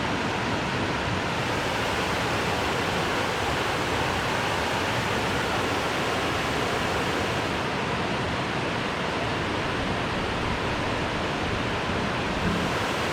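Steady, even rushing of a creek waterfall.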